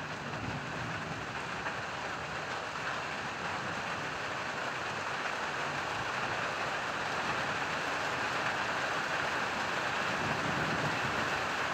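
Steady rain of a summer thunderstorm, slowly growing a little louder, with a faint low rumble of distant thunder near the end.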